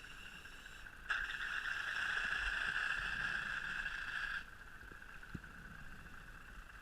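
Scuba regulator hissing as a diver breathes in underwater, starting suddenly about a second in and cutting off about three seconds later, over a steady faint hiss.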